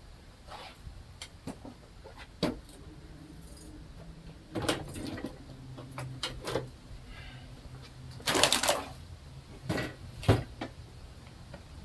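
Irregular clicks, knocks and rustling from objects being handled, over a faint low steady hum. The loudest moments are a rustling burst about eight seconds in and a sharp knock about ten seconds in.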